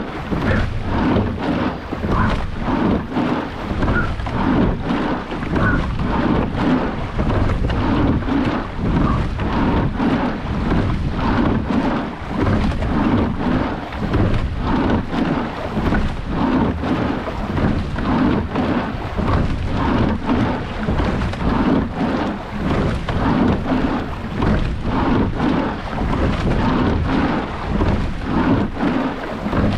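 Wind buffeting the microphone of an action camera on a rowing boat, over water rushing and splashing along the hull. The noise swells and eases in a steady rhythm with the rowing strokes, with frequent short knocks from the oars and rigging.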